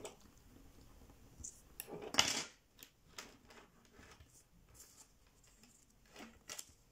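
Sheet of 80 g/m² orange printer paper rustling and crinkling as it is folded and pressed flat into an origami squash fold, with a few light clicks and taps; the loudest rustle comes about two seconds in, another near the end.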